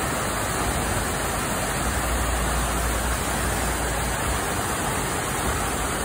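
Man-made rock waterfall splashing steadily down tiered stone ledges into a pool, a constant even rush of falling water. A low rumble comes up underneath for a couple of seconds in the middle.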